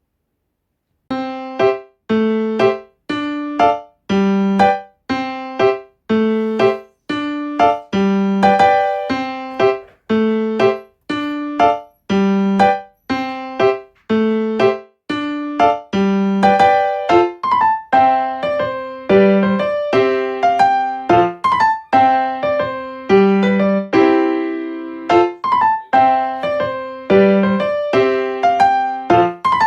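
Background music: a solo piano-like keyboard tune in a steady, bouncy rhythm, each note struck and fading, starting about a second in.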